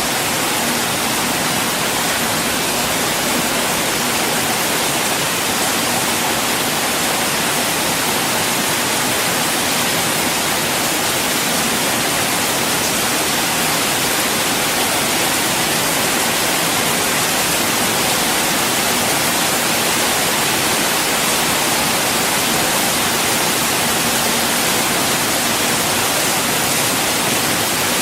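Light rain falling, a steady, even hiss with no single drops standing out.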